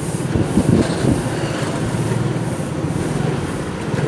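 Motorcycle engine running steadily while riding, with street traffic and road noise around it and a few short knocks about half a second to a second in.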